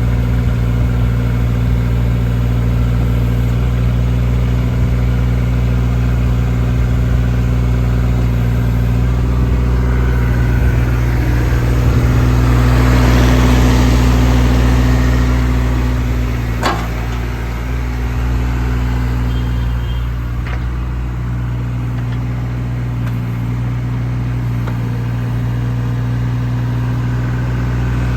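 2017 JCB 8018 mini excavator's diesel engine running steadily, getting louder for a few seconds around the middle, with a sharp click just after.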